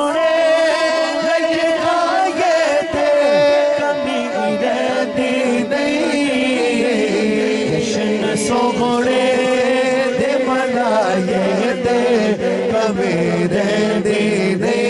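A man singing a naat into a microphone: a long, drawn-out vocal passage of held notes that slide and waver in pitch.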